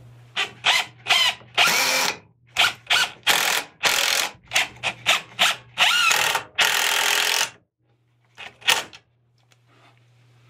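Cordless drill boring a pilot hole into wood blocking in a run of short trigger pulls, the motor whining up with each one, with a few longer runs; it stops about three-quarters of the way through, leaving a couple of faint clicks.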